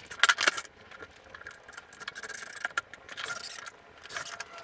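Tools being handled on a wooden workbench: a couple of sharp clicks about a quarter second in, then softer scraping and rubbing as the cordless drill is picked up and set against the clamped joint.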